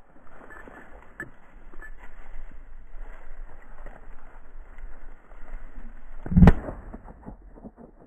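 Rustling and crunching of steps through dry grass stubble, with a single loud shotgun shot about six and a half seconds in.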